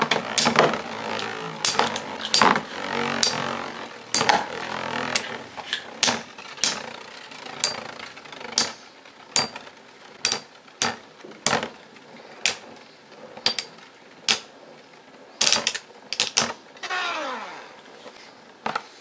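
Two Beyblade tops, Samurai Ifrit E230CGF and Ninja Salamander SW145SD, spinning and whirring in a plastic stadium, with sharp plastic clacks each time they hit each other or the stadium wall. The whir is strongest at first and fades as they slow. Near the end there is a falling, wobbling whir as the Samurai Ifrit loses its spin and tips over.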